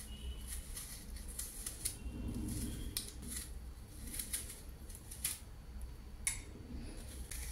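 Small kitchen knife peeling the skin off an apple: a series of short, faint, irregular scraping strokes as the blade cuts through the peel.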